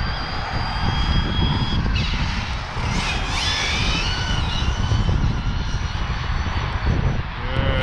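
Electric RC short-course truck (Hyper 10SC on a 3S battery with an 18-tooth pinion) running at speed: a thin, high motor whine that holds steady, then sweeps up and down in pitch about three seconds in. A heavy rumble of wind on the microphone lies under it.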